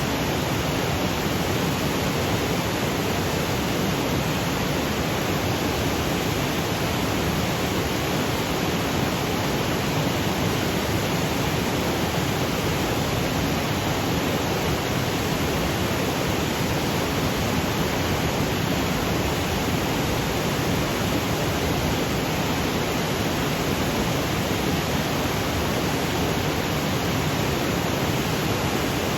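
Waterfall cascading over granite boulders: a steady, unbroken rush of water.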